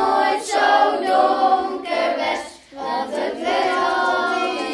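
A song with several voices singing together, briefly dropping out about two and a half seconds in.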